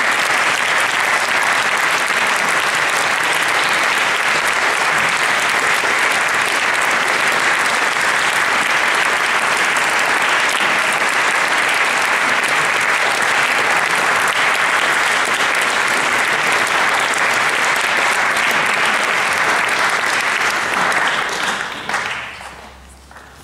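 Audience applauding steadily and loudly, tailing off about 21 seconds in to a few last claps.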